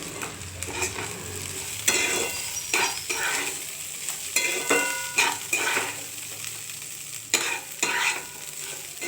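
Rice frying in oil and ghee with raisins and cashews, stirred in the pot: about nine scraping and knocking strokes against the pot, some leaving a short ring, over a steady sizzle.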